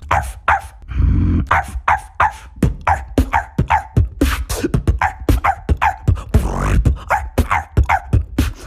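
Human beatboxing: quick vocal drum strokes in a steady rhythm, woven with short falling yelps and barks that imitate a dog.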